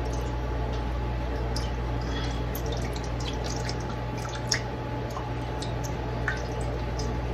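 Beef broth being poured into a baking pan: scattered light drips and splashes of liquid over a steady low hum.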